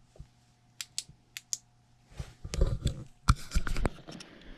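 Handling noise from tools and equipment being moved: a few light clicks, then from about halfway through a busy run of knocks and clatter with a couple of sharp thumps.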